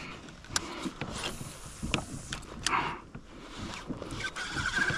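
Daiwa BG 3000 spinning reel being cranked to retrieve a lure, its whirring starting about four seconds in and coming in short stretches, after a few scattered knocks and clicks.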